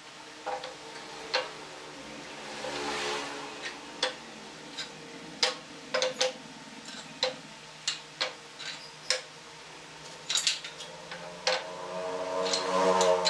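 Pine pallet-wood slats knocking and clacking as they are laid one by one onto a shelf frame's wooden rails: short, sharp wooden clacks at irregular intervals, about one a second.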